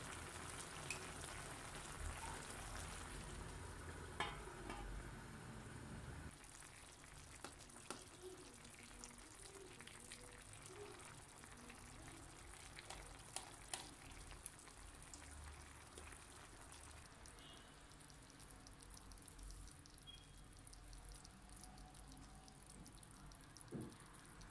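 Faint simmering of a bonito and vegetable stew's broth in a wide pan, with a light sizzling hiss and scattered small pops. It is fuller for about the first six seconds, then drops to a quieter simmer with occasional ticks.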